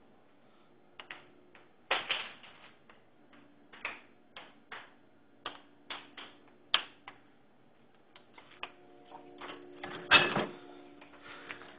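Footstep and handling noise: a string of irregular clicks and knocks, with a louder thump about ten seconds in.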